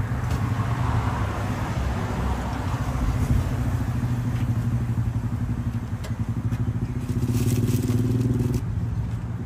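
An engine running steadily at idle, a low even hum. About seven seconds in a second, higher engine tone joins it and cuts off suddenly about a second and a half later.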